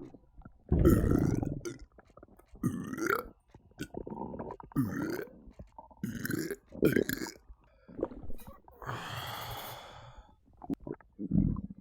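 A person belching over and over: a string of burps of different lengths, some deep and drawn out, with a long breathy exhale about nine seconds in.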